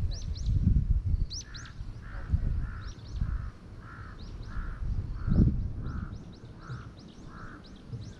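A crow cawing about ten times in an even series, starting a second and a half in, over high chirps from small birds. Low rumbling thumps come and go underneath, the loudest about five seconds in.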